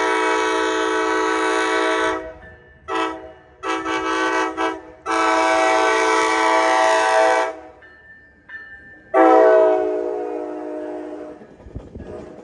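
Locomotive air horn sounded in a series of blasts. A long blast comes first, then several short toots, then another long blast. About nine seconds in, a very loud blast begins and fades away over the next two seconds.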